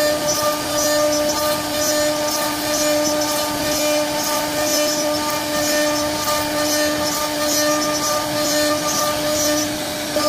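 CNC wood-carving router running with its spindle giving a steady whine, and a hiss that rises and falls as the bit cuts into the wood.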